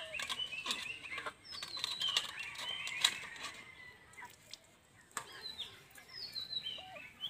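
Scattered clicks and knocks of snail shells and a steel plate on a wet stone slab as the snails are cleaned, with one sharp knock about three seconds in. A bird sings a descending run of whistled notes several times over it.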